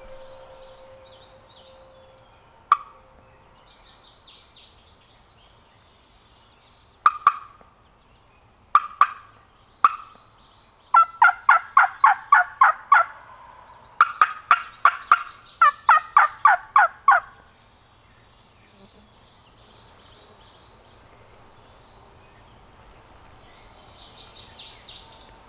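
Wild turkey cutting and yelping: a few sharp single cuts, then two long runs of loud, rapid yelps, about four or five notes a second. Faint songbird chirping comes before and after.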